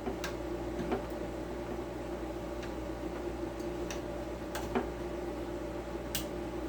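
A handful of light, sharp clicks and taps, spread out, as AAA batteries are handled and pressed into a small plastic battery compartment on a circular saw, over a steady low hum.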